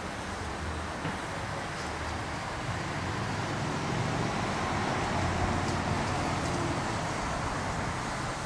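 Outdoor background noise of road traffic: a steady rumble that swells for a few seconds in the middle, as a vehicle passes, and then eases.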